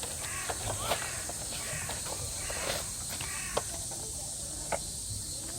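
Outdoor summer ambience: a steady high-pitched insect drone, with several short harsh animal calls in the first half and a couple of sharp clicks later.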